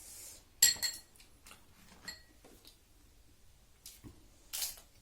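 Tableware clinking during a meal: a sharp, ringing clink about half a second in and a lighter one near two seconds, then a brief noisy sound near the end.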